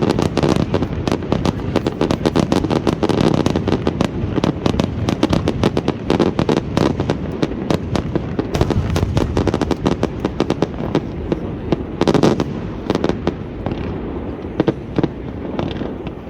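Fireworks display: a rapid, continuous barrage of bangs and crackles from bursting shells, with a loud cluster about twelve seconds in, thinning out near the end.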